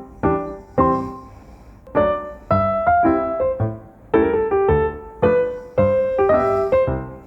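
Piano music: a gentle melody of single notes and chords, each struck and left to ring and fade.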